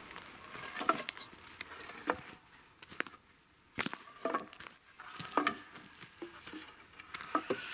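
Sporadic wooden clicks and knocks mixed with rustling of brush and dry twigs, as wooden poles are handled on a log frame.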